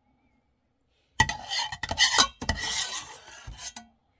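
A kitchen utensil scraping and rubbing against cookware as béchamel sauce is spread over a filling. Several quick strokes start about a second in and stop just before the end, with a faint metallic ring.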